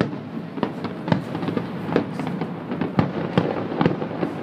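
Fireworks display going off: a rapid, irregular string of sharp bangs, several a second, a few of them louder than the rest.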